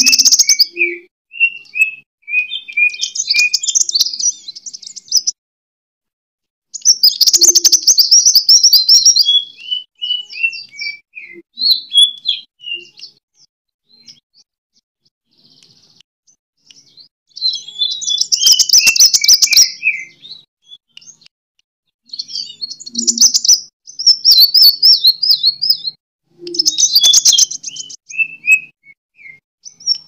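Sunbird singing in repeated phrases of rapid, high, rasping trills, each followed by short notes stepping down in pitch. The song pauses for a few seconds about halfway through.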